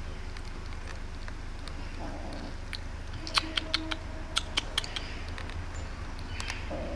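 Kitten chewing wet cat food: a quick run of sharp, wet clicks, about six a second for a second and a half, a little past the middle.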